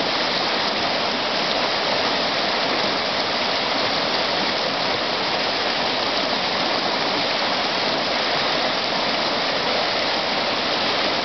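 Whitewater rapid rushing steadily over rocks, a loud, even roar of churning water.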